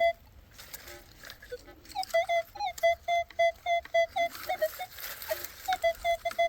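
Minelab Manticore metal detector giving short, repeated beeps, about four a second, as its coil is swept over a buried metal target. The beeping starts about two seconds in, stops briefly, then resumes near the end.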